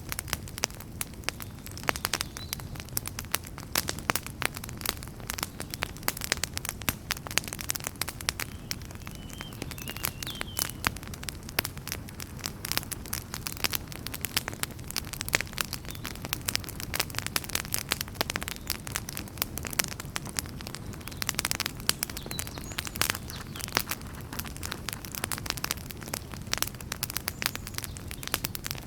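Wood fire burning in a fireplace: logs crackling and popping in a dense, irregular stream over a steady low rumble of the flames.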